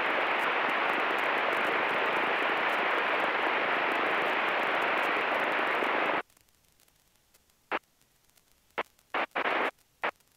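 Steady static-like hiss on the cockpit headset/intercom audio feed, with none of the engine's own note. It cuts off suddenly about six seconds in, as the squelch closes, leaving near silence broken by a few short bursts of hiss as the audio briefly reopens.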